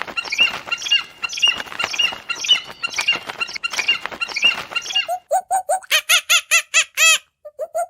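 Birds chirping densely and overlapping for about five seconds, then an abrupt change to a run of short, evenly repeated calls from a chicken, about four a second.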